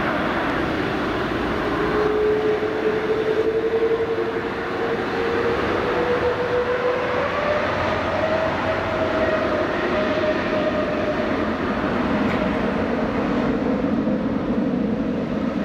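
Boeing 787-8 airliner's Rolls-Royce Trent 1000 jet engines after touchdown: a loud, steady rumble with a tone that rises over several seconds and then slowly falls away, as the engines spool up in reverse thrust to slow the aircraft on the runway.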